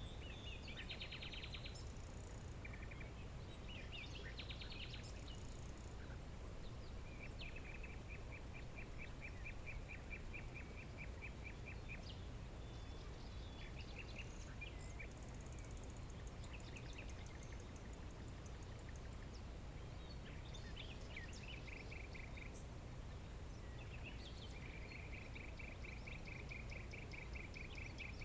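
Birds calling over a steady low background rumble: several long, rapid trills of evenly repeated notes, with short chirps in between and faint, very high fast-pulsing calls.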